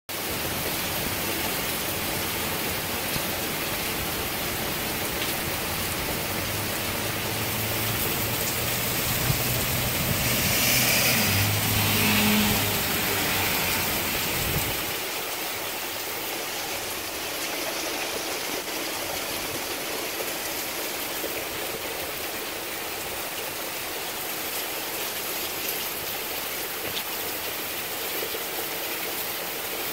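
Heavy rain pouring down onto pavement and a street, a steady dense hiss of falling water. In the first half a low hum swells, peaks around twelve seconds in and dies away near fifteen seconds.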